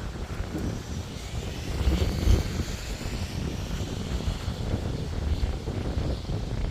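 A vehicle passing, swelling loudest about two seconds in with a faint whine, over wind on the microphone.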